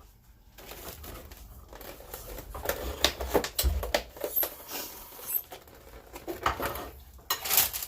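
Kitchen handling sounds: irregular rustling and crinkling with light clicks and knocks, and a louder crinkly burst near the end.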